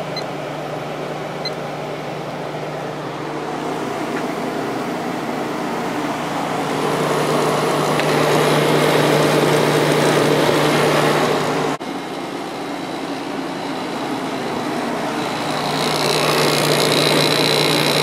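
Fedders 7500 BTU window air conditioner running with its compressor on and its fan on low speed: a steady hum under a rush of air, swelling louder in the middle and again near the end, with a brief break about twelve seconds in. The compressor is a little louder just after starting up, a noise that goes away once it has run a while.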